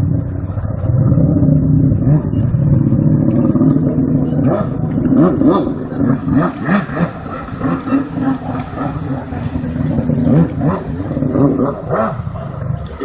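Jet ski engine running under throttle, its level rising and falling; from about halfway in it grows choppier, with short knocks among the engine sound.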